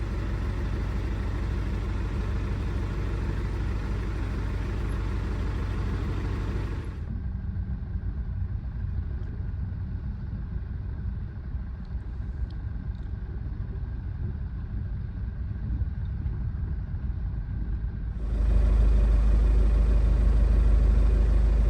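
A steady low engine rumble with a faint hum. It drops in level about seven seconds in and comes back louder about eighteen seconds in.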